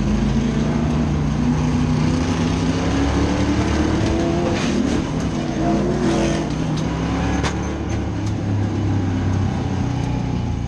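Street stock race car's engine heard from inside the car, accelerating with a rising note over the first several seconds. Several sharp knocks and bangs come midway as the car is caught up in a multi-car pile-up on the restart.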